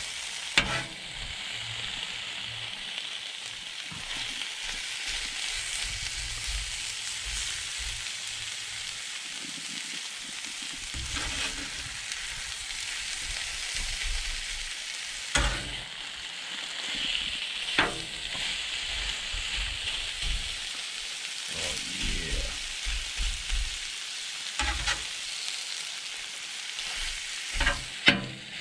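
Shaved steak and melting mozzarella sizzling on the steel plate of a 22-inch Blackstone griddle, a steady hiss throughout. A metal spatula clanks sharply against the griddle now and then as the meat and cheese are turned and chopped.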